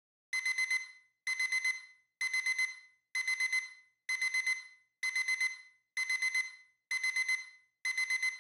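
Smartphone alarm going off: groups of four quick, high beeps, repeating about once a second, nine times in all.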